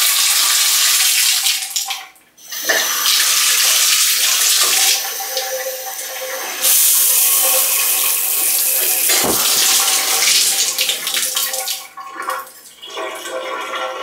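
Water running hard from a bath-shower tap into a tiled bathtub, with a steady loud rush. It cuts out briefly about two seconds in, runs again and gets brighter about halfway through, then stops near the end.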